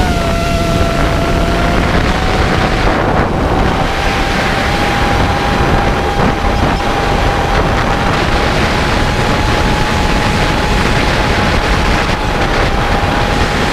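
The electric motors of a 5-inch FPV racing quadcopter whining at a nearly steady pitch, under heavy wind rush on the onboard microphone. The whine dips slightly just after the start, then holds a little higher.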